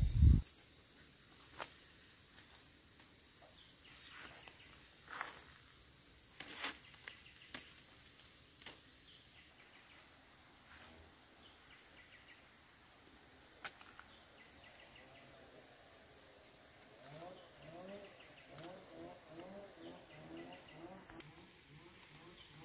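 An insect trilling one steady high note that stops about ten seconds in, with a few faint knocks. Faint distant voices come in near the end.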